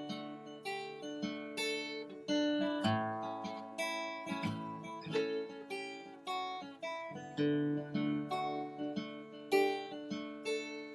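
Background music: acoustic guitar picking and strumming steadily.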